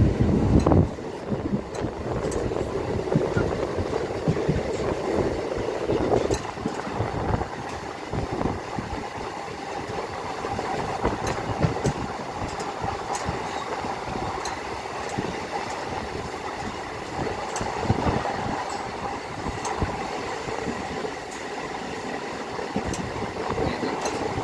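Steady rumble and rattle of a moving vehicle, heard from on board.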